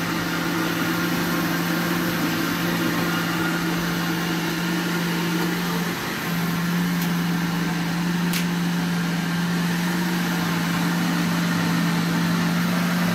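Philips countertop blender running steadily as it blends a chili-and-cheese ají sauce, a constant motor hum that dips briefly about halfway through.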